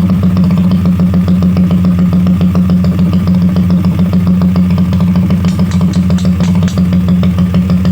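Skygo 150cc motorcycle engine idling steadily, a loud, even exhaust note at a constant pitch.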